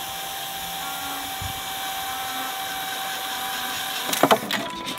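Cordless drill running steadily, driving a screw into PVC pipe; it stops about four seconds in, followed by a few sharp knocks.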